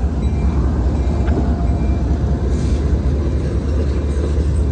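Double-stack intermodal freight cars rolling past: a steady, loud rumble of steel wheels on rail, with a few faint short squeals.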